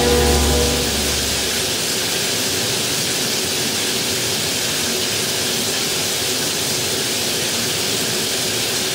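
Steady hiss of a shower running. A held musical chord dies away about a second in.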